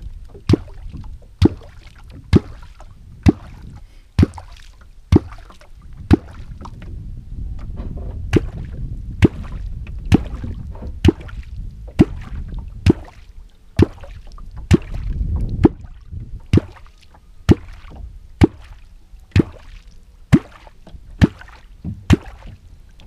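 A Perm-made 'svaeboy' kvok, a hand-held catfish call, slapped into the river surface again and again at a steady pace of about one stroke a second. Each stroke gives a sharp, hollow 'kvok' gulp meant to draw catfish to the bait, over a low wash of water and wind.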